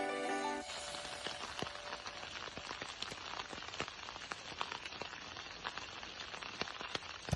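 Steady sizzling hiss from cooking, dotted with dense irregular crackles and pops. The background music fades out in the first half second.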